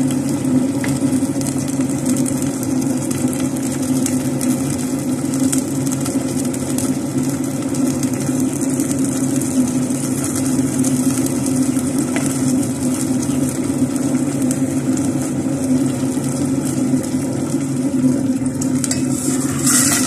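Sardines in tomato sauce simmering in a stainless steel pot, bubbling and sizzling over a steady low hum. A brief knock near the end.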